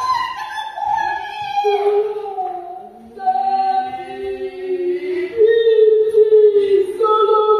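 Voices singing long held notes. At first one line glides down, and from about three seconds in several voices hold notes together in harmony.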